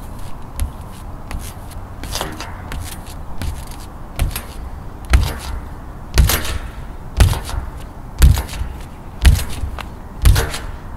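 Feet landing on an in-ground trampoline mat: repeated thuds, about one a second, much stronger from about halfway through.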